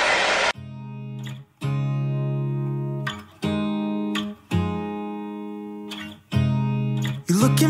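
Background music: an acoustic guitar strumming about six slow chords, each left to ring out. A hair dryer blows briefly at the very start and cuts off suddenly.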